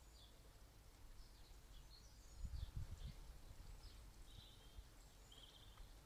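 Faint bird chirps and short calls, over a low wind rumble on the microphone that swells briefly about two and a half seconds in.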